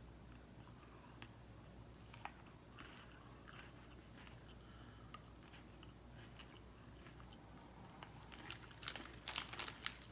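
A person chewing a crunchy chocolate-flavoured cracker snack close to the microphone, with faint crunches and mouth clicks. There is a burst of louder crackling near the end.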